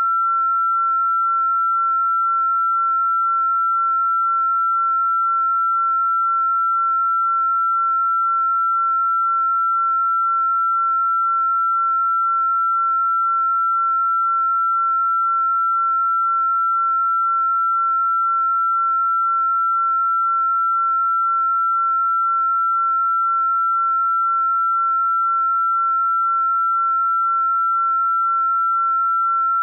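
A steady, unbroken pure sine tone, electronically generated, held at one high pitch a little above 1 kHz: a sound-therapy 'healing frequency' tone.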